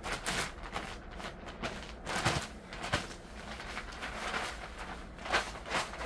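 Plastic sack of livestock-manure compost rustling and crinkling in irregular bursts as the compost is shaken out of it onto tilled soil, with a few footsteps on the soft ground.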